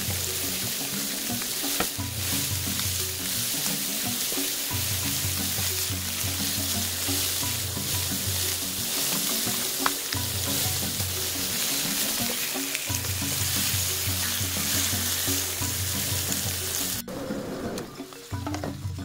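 Lamb steaks and sliced mushrooms frying in a hot non-stick pan, a steady dense sizzle that cuts off sharply near the end. A repeating low music line plays underneath.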